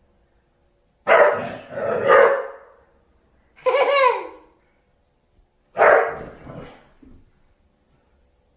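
A dog barking and vocalizing in three separate bursts, the middle one a call that falls in pitch.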